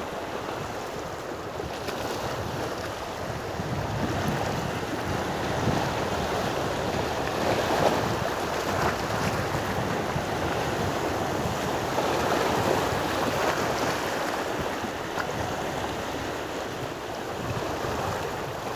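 Small sea waves washing and breaking over shallow, weed-covered rocks, a steady surf wash that swells and eases gently, with wind buffeting the microphone.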